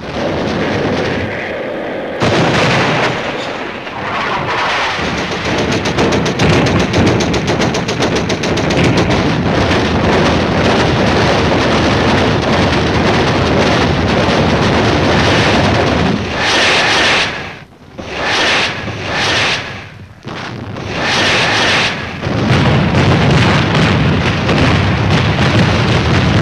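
Naval gunboat guns firing rapidly and without let-up, shot after shot packed close together, with a few short breaks about two-thirds of the way through.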